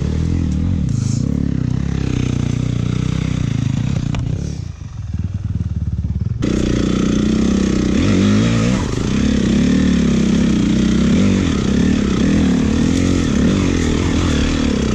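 Dirt bike engine running steadily. From about six seconds in it gets suddenly louder, its revs rising and falling under throttle.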